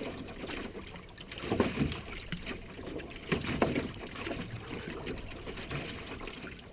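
Canoe paddle strokes: the blade dipping and pulling through the lake water with a swish and splash, one stroke every couple of seconds.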